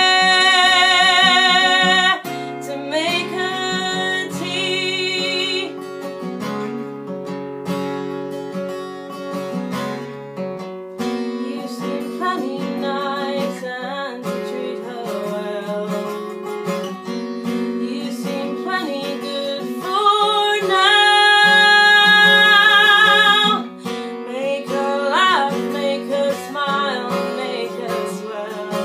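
A woman singing to her own strummed acoustic guitar. She holds long notes with vibrato near the start and again about two-thirds of the way through, where it is loudest.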